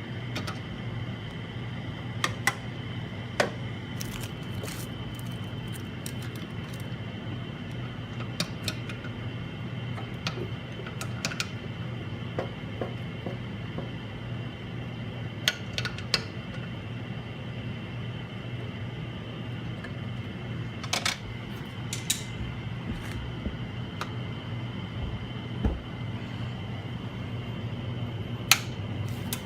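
Light clicks and taps of small screen parts and trays being handled and set into a bubble-remover machine, scattered irregularly, over a steady low machine hum.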